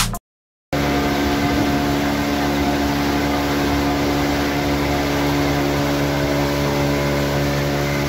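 Outboard motor running steadily at speed, driving a small boat, over a steady hiss. It cuts in abruptly after a brief silence about half a second in.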